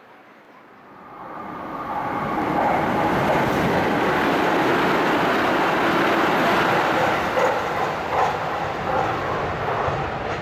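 Tsukuba Express electric commuter train passing through a station at speed without stopping. Its rush builds from about a second in, stays loud and steady, and eases a little near the end.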